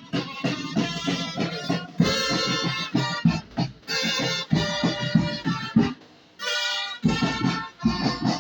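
Music with instruments and a regular low beat.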